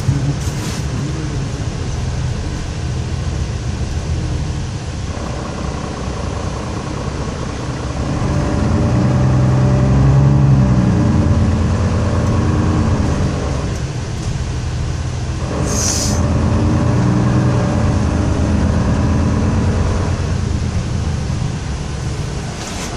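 Mercedes-Benz Conecto II city bus driving, heard from inside the cabin: the diesel engine and drivetrain pull the bus along, rising in pitch as it accelerates about a third of the way in, easing off, then rising again. A short hiss of air comes about two-thirds of the way through.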